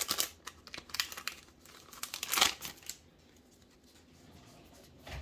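Foil wrapper of a Magic: The Gathering Dominaria United draft booster pack crinkling and tearing as the pack is ripped open, in short crackly bursts over the first three seconds.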